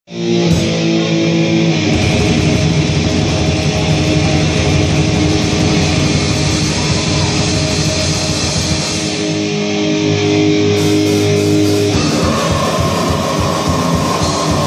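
Thrash metal band playing live and loud: distorted electric guitar with bass and drums. Sustained guitar notes open, the full band comes in about two seconds in, and the music changes to a faster, choppier drum-driven section near the end.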